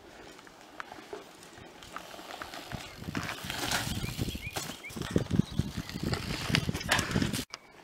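Mountain bike riding over a dirt trail: tyres crunching on earth and dry leaves with rattling knocks from the bike, louder from about three seconds in. It cuts off suddenly near the end.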